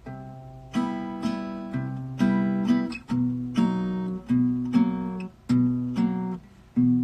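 Acoustic guitar strummed in chords, about two strokes a second, with shorter, choppier strokes near the end. She is working out the chords of a song she wrote but can't recall.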